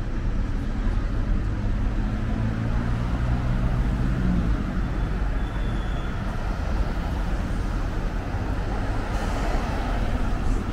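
Town-street traffic: cars driving past with engine hum and tyre noise. An engine hum holds steady for the first few seconds, and a vehicle passing close makes a louder rush near the end.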